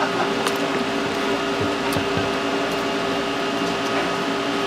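Steady electric machine hum with a few fixed tones, with a few faint knocks of a knife against the cutting board as a black sea bream is cut up.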